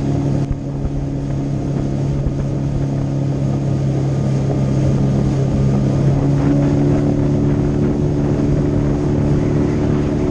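Suzuki DF20A two-cylinder four-stroke outboard running steadily, pushing a small aluminium boat through the water. It is a constant engine drone whose tone shifts slightly about six seconds in.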